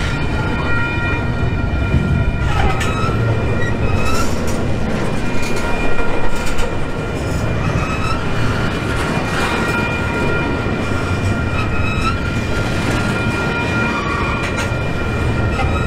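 Model freight trains running past on a layout: a steady low rumble with a whining tone over it, and a short squeal that recurs every couple of seconds.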